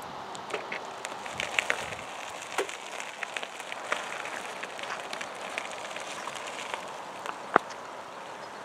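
Mountain-bike tyres crunching and crackling over loose gravel as the bike rolls off, the crackle thinning out after about four seconds, with one sharp click near the end.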